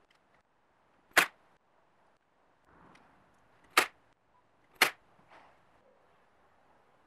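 Three sharp, loud clicks: one about a second in, then two more a second apart near four and five seconds, over a faint background hiss.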